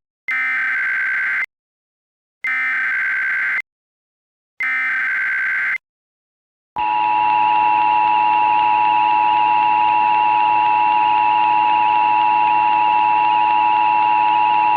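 Emergency Alert System signal. First come three short bursts of SAME header data tones, each about a second long with a second of silence between them. About seven seconds in, the two-tone attention signal (853 and 960 Hz) starts and holds steady over a hiss.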